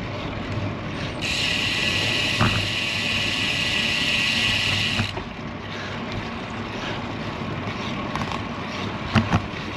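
Rear freehub of a road bike ratcheting steadily while the rider coasts, starting about a second in and stopping abruptly about four seconds later when pedalling resumes. Wind and road noise run underneath, with a couple of brief knocks near the end.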